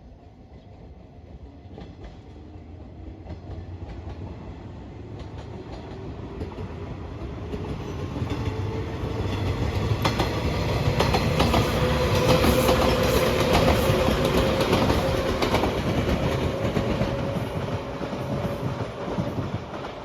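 A train approaching and running past, growing louder over about twelve seconds and then easing off a little. The wheels clack over rail joints, and a steady whine rises slightly in pitch.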